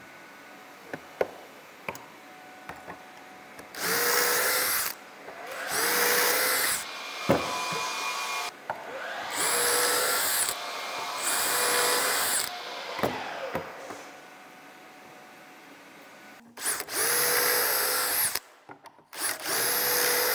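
DeWalt cordless drill boring pocket holes through a Kreg jig into LP SmartSide composite trim board: six short runs of the drill, in three pairs, each a second or so of steady motor whine with the bit cutting. A few sharp clicks and knocks fall in the gaps between runs.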